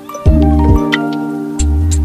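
Background music: held chords over a bass line, with percussive hits every half second or so.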